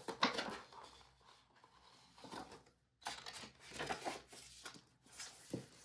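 Cardboard album packaging and paper inserts rustling and sliding against each other in several short bursts, with a soft bump near the end.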